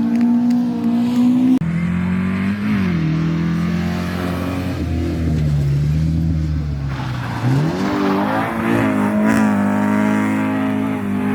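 Rally car engine revving hard, then cutting off sharply about a second and a half in and falling in pitch as the car slows for a corner; from about seven seconds in the engine picks up and revs climb again as it accelerates away.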